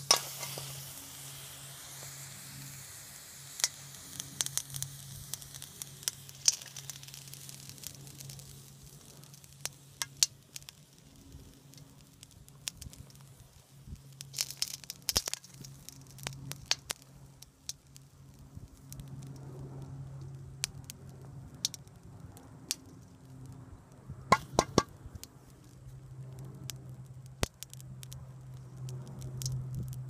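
A propane torch burner runs in a bucket furnace with a steady low rumble, while a metal skimmer scrapes and knocks against the crucible. It is lifting dross off molten brass, giving irregular sharp clicks and scrapes, in clusters about 4 to 6 seconds in, around 15 seconds and around 25 seconds.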